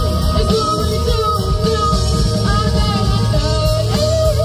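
Live rock band playing amplified electric guitars, bass, drums and keyboards, with a female lead singer singing over them.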